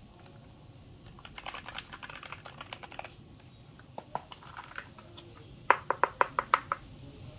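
Keychron K4 Pro mechanical keyboard being typed on. A quick run of key clicks starts about a second in, followed by a few scattered keystrokes, then about eight louder, evenly spaced key presses near the end.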